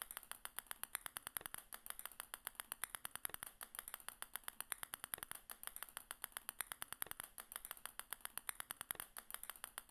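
Fast, even run of small sharp clicks, several a second: small balls dropping one after another and clicking as they land on a growing pile.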